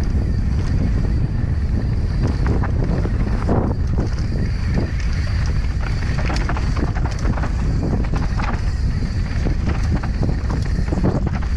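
Wind buffeting the camera microphone with a loud, steady rumble while a mountain bike rolls down a dirt singletrack, its tyres and frame giving frequent short knocks and rattles over the bumps.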